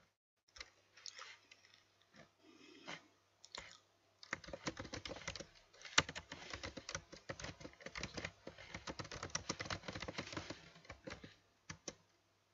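Typing on a computer keyboard: a run of quick key clicks, a short pause about four seconds in, then fast steady typing that trails off near the end.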